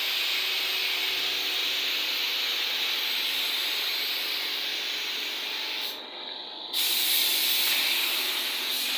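Gravity-feed spray gun hissing steadily as it sprays paint onto a car body. The hiss breaks off for under a second about six seconds in, then resumes.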